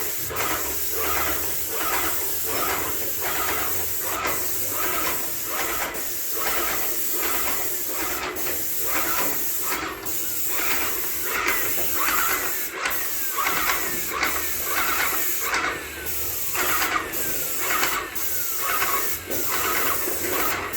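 Airless paint sprayer spraying: a steady hiss with a regular pulse, somewhat under two a second.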